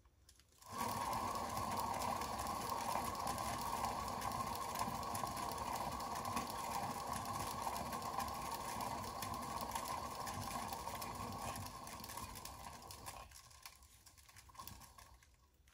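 Small electric motor of a paint-pouring spinner running steadily as it spins a round, wet acrylic pour painting. It starts up under a second in and winds down and stops about 13 seconds in.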